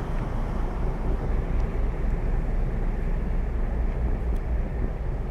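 Steady low rumble of a passenger ship under way at sea.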